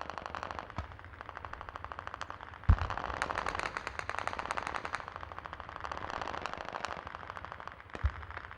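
Battlefield gunfire: sustained rapid automatic-weapon fire, many shots a second. A loud heavy boom comes about three seconds in, and another near the end.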